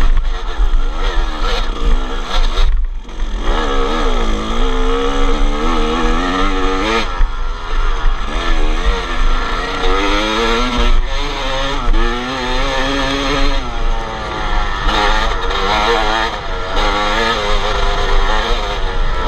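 2002 Kawasaki KX250's two-stroke engine revving hard on a dirt-bike hill climb, its pitch rising and falling again and again as the throttle is worked. The throttle is briefly chopped about three seconds in.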